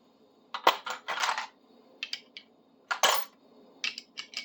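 Steel sockets clinking and rattling against each other as they are picked through and handled, in a series of short metallic clatters and clicks, the loudest about a second in and again at about three seconds.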